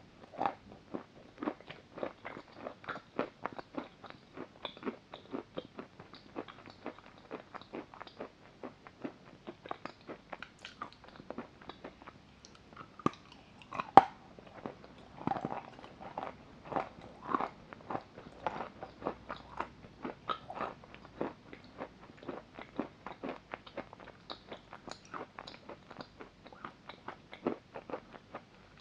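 Block of chalk being bitten and chewed close to the microphone: a dense run of crisp crunches, several a second, with one sharp, loud bite about halfway through.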